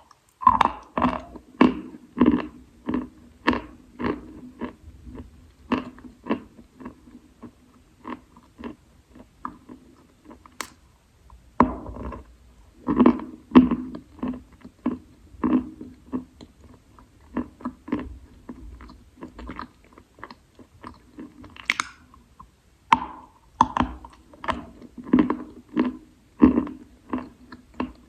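A person biting and chewing moist Khrapovsky chalk: a steady run of crunches, about one or two a second, with louder bursts of chewing midway and again near the end.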